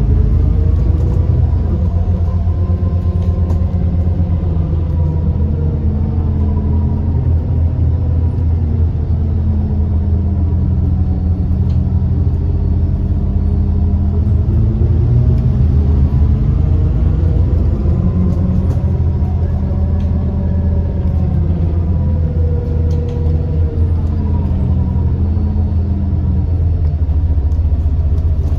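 Alexander Dennis Enviro400 MMC double-deck bus driving: a steady low drivetrain rumble with whining tones that rise and fall several times as the bus speeds up and slows. The loud axle whine and turbo whine are signs of a worn-out bus.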